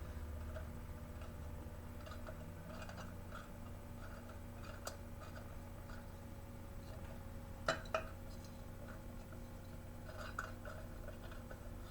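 Lamp parts being handled and worked apart: scattered small clicks and taps, with two sharp knocks close together about eight seconds in, over a steady low hum.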